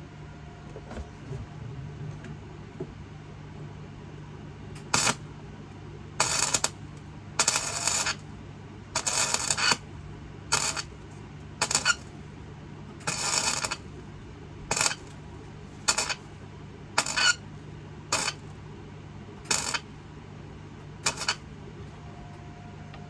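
Welding arc crackling in about a dozen short tack-weld bursts, each up to about a second long, over a steady low hum.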